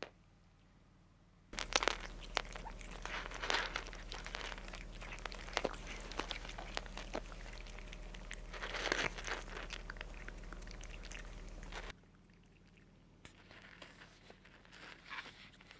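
Several cats crunching dry kibble, a dense run of small crunches and clicks that starts after a quiet second and a half. About twelve seconds in it drops to quieter, sparser crunching.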